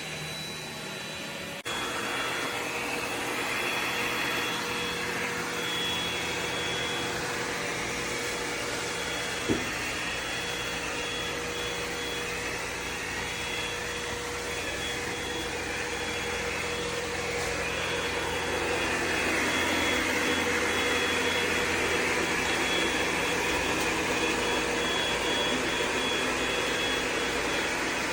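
ECOVACS DEEBOT X9 PRO robot vacuum running, a steady whirr with a thin high whine, with a single sharp click about nine seconds in.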